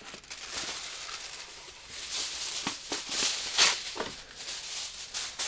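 Aluminium foil being pulled off the roll in its box, torn off and crinkling as the sheet is handled.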